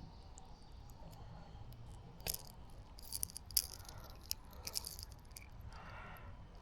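A topwater lure and its treble hooks rattling and clicking in short bursts while a hooked fish is worked free. The rattles come in a few quick clusters, the loudest about a second and a half in.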